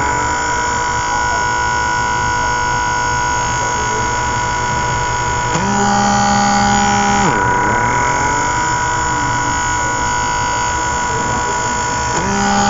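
Small electric suction motor of a handheld vacuum blackhead remover running with a steady hum while held against the skin. About seven seconds in its pitch drops sharply, then climbs back.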